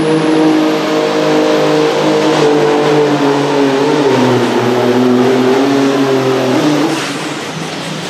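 Supersport-class pulling tractor's engine running at high revs under full load as it drags the weight-transfer sled, its pitch sagging a little about halfway. About seven seconds in the engine note falls away abruptly as the tractor comes to a stop at the end of its pull.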